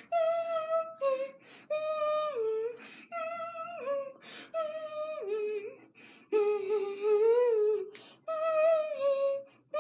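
A young boy humming a tune in long held notes, many stepping down in pitch at the end, with quick breaths between the phrases.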